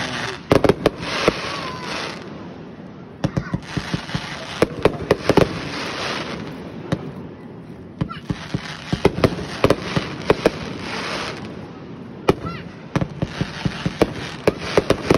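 Consumer fireworks going off: many sharp bangs and pops, coming in four spells a few seconds long, each with a hiss underneath.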